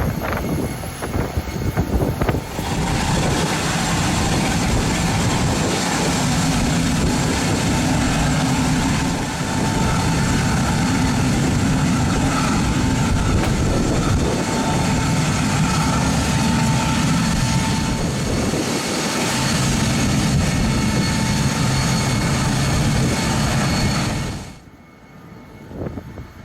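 Boeing 747-400F on the apron at pushback: a steady turbine whine with several high tones over a low rumble, cutting off suddenly near the end.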